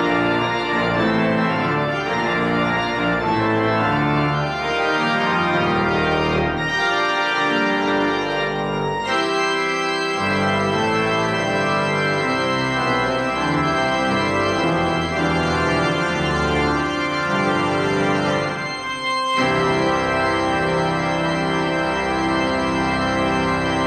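Pipe organ playing a postlude in full sustained chords with moving notes, with a short break between phrases about nineteen seconds in.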